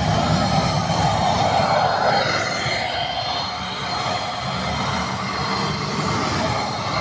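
Electric paint spray gun's turbine blower running steadily while spraying paint: a constant rush of air with a low hum and a thin high whine.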